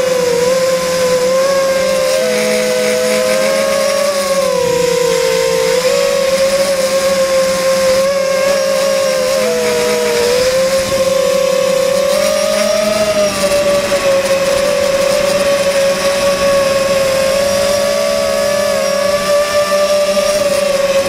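FPV drone's Sunnysky 2300kv brushless motors on 3S spinning 5x3x3 three-blade propellers, heard from the onboard camera: a loud, steady whine that wavers up and down in pitch with the throttle.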